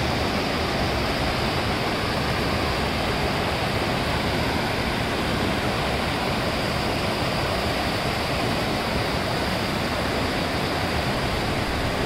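Steady rush of a wide mountain river tumbling over granite rocks and small rapids.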